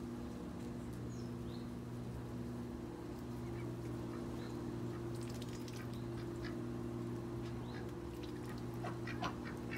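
Ducks giving a few short calls, clustered near the end, over a steady low hum. Faint high chirps of small birds come and go.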